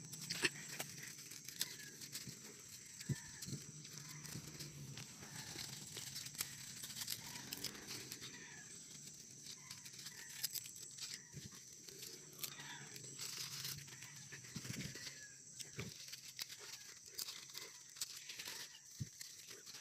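Leafy green plants being picked by hand: stems snapping and leaves tearing and rustling in short, irregular clicks, faint.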